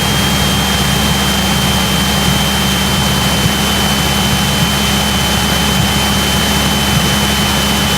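Cessna 172's piston engine and propeller droning steadily at constant approach power, heard from inside the cabin, with a thin steady high whine over it.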